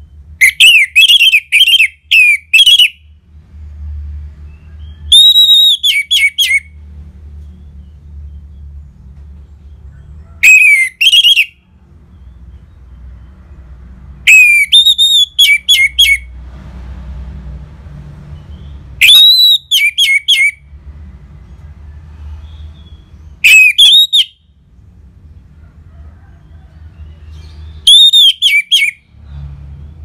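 Orange-headed thrush (anis merah) singing loud, clear whistled phrases of quick repeated rising-and-falling notes. It sings seven short bursts of a second or two each, a few seconds apart.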